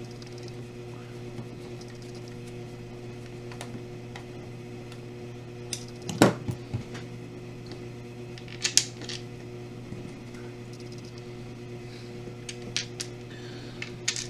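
Screws being driven into a plastic joystick case with a screwdriver: scattered clicks and knocks, the loudest about six seconds in, over a steady electrical hum.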